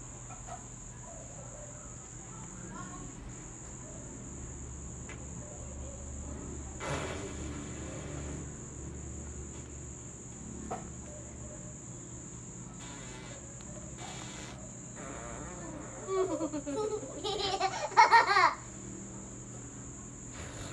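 A girl laughing loudly for about two seconds near the end, over a steady high-pitched insect trill and a low hum. A brief rustle comes about seven seconds in.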